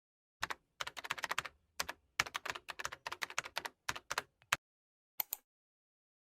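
Typing on a computer keyboard: a quick, irregular run of key clicks for about four seconds, then a pause and a couple more keystrokes.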